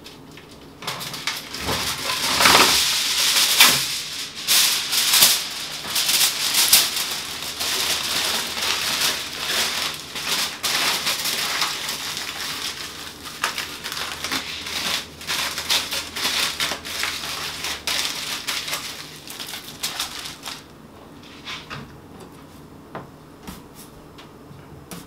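Aluminium foil being torn off and crumpled tightly around a potato, a dense crackling rustle that stops a few seconds before the end. A few light knocks follow.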